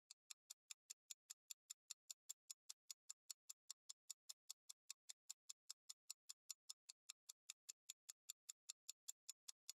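Quiet clock-ticking countdown sound effect: fast, even ticks, about five a second, timing the answer period of a quiz question.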